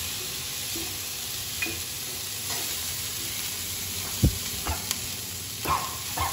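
Poha and vegetables sizzling in a frying pan while a metal fork stirs them. The fork clinks and taps against the pan several times, loudest about four seconds in.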